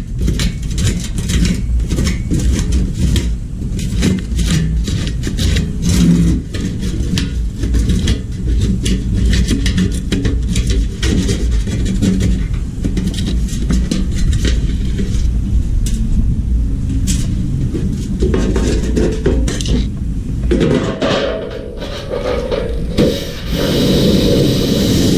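Scraping, rubbing and clattering of tools against hard metal and wooden parts, made of many short clicks and scrapes over a steady low rumble. About two-thirds of the way in the sound thickens, and near the end a loud hiss sets in.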